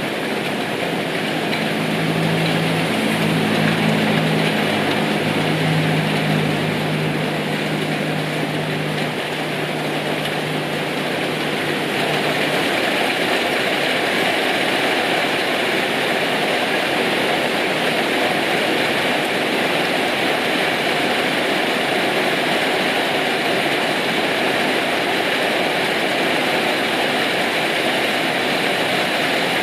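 Steady heavy rain falling, with a low engine hum under it for the first dozen seconds or so that then fades out.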